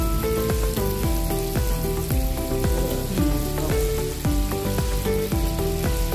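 Instrumental background music with a repeating melody and bass, over the steady sizzle of fish deep-frying in a pan of hot oil.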